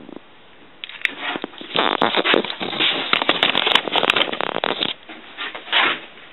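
Crackling, rustling handling noise packed with sharp clicks, starting about a second in and dying away about five seconds in.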